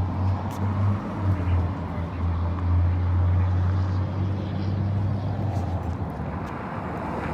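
Motor vehicle engine running with a steady low hum as it passes, dying away about six seconds in.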